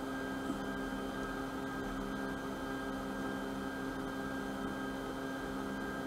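Steady hum of a stationary electric locomotive, heard inside its cab: a low drone with several held tones over a faint hiss.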